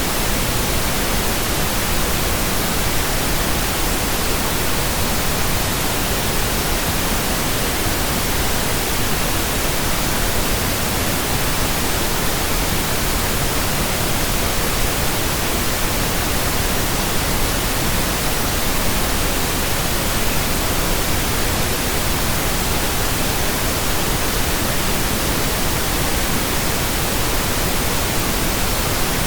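Steady pink noise: a soft, even static like a radio tuned between stations.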